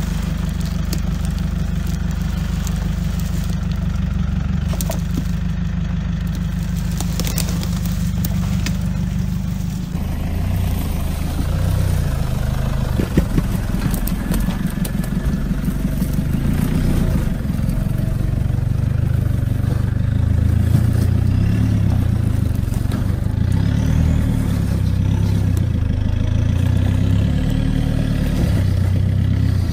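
Toyota Hilux engine working under load as the truck crawls up a steep rocky track, its pitch rising and falling with the throttle. A single sharp knock about thirteen seconds in.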